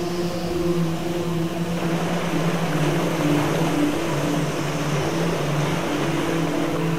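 Rushing river water churning over rapids, a steady rush that grows louder about two seconds in, under a low steady humming drone.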